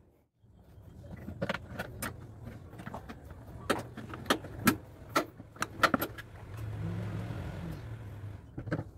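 Car air filter housing being closed by hand: a quick run of sharp clicks and rattles from the plastic lid and its metal latch clips, over a low hum.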